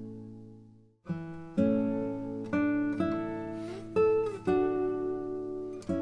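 Relaxing acoustic guitar music: a chord rings and dies away to a moment of silence about a second in, then plucked notes and chords pick up again.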